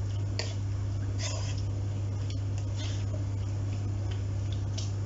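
A plastic spatula stirring raw mutton pieces in a nonstick kadhai, with a few light scrapes, over a steady low hum.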